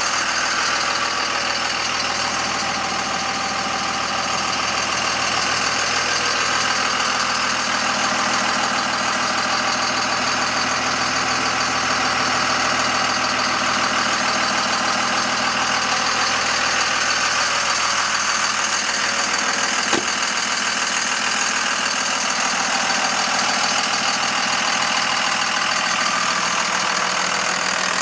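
Dodge Ram 3500's 5.9-litre Cummins turbo-diesel inline-six idling steadily, with a single click about two-thirds of the way through.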